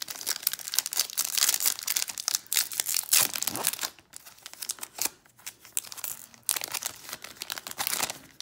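Foil wrapper of a Topps 2021 Series 1 baseball card pack crinkling and tearing as it is crumpled and ripped open by hand. It comes in two spells, with a short pause about four seconds in.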